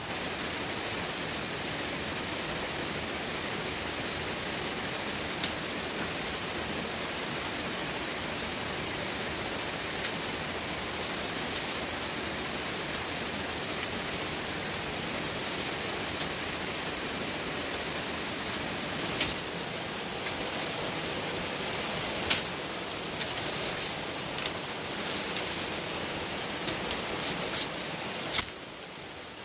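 Steady outdoor ambient hiss with a constant high-pitched tone and runs of fast pulsing chirps. Scattered sharp clicks and knocks come through it and grow busier in the last several seconds.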